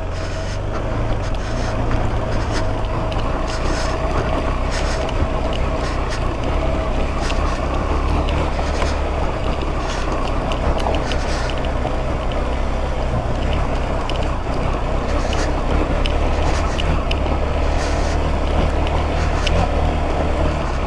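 KTM 390 Adventure's single-cylinder engine running steadily as the motorcycle climbs a rocky off-road trail, with scattered clicks and knocks from the bike going over loose rocks.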